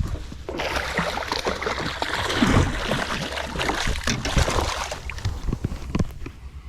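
Water splashing and sloshing with irregular slaps from about half a second in until about five seconds, as a hooked redfish thrashes at the surface while it is brought in.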